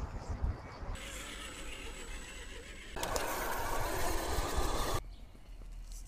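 Radio-controlled 1:10 crawlers driving over rough ground, with the whir of their electric motors and drivetrains mixed with outdoor noise. The sound changes abruptly about every two seconds as one short clip gives way to the next.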